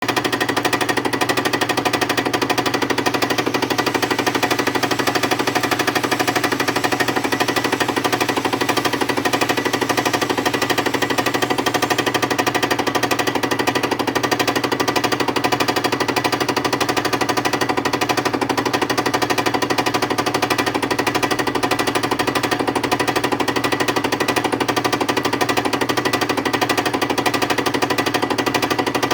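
Milling machine face-milling a steel machine part: the cutter runs steadily through the cut with a rapid, even hammering chatter and a steady whine.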